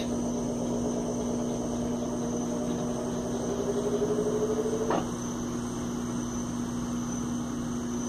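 Electrolux LT12F top-load washing machine spinning up in its spin cycle: a steady hum with a whine that rises in pitch as the basket accelerates, stopping abruptly about five seconds in. The washer is working through its stepped spin ramps.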